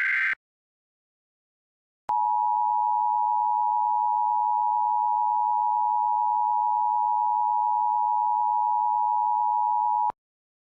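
The tail of an Emergency Alert System SAME header data burst: a short digital warble that stops just after the start. After a short pause, the EAS attention signal sounds, the two-tone 853 and 960 Hz alert tone, held steady for about eight seconds and cutting off cleanly.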